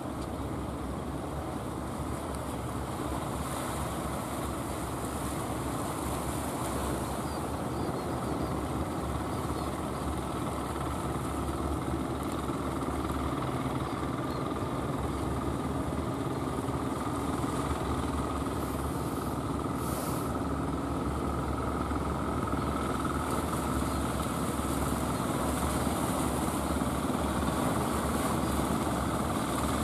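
Engines of several wooden fishing boats running steadily as the boats come in, the drone growing slowly louder as they near. A short hiss comes about twenty seconds in.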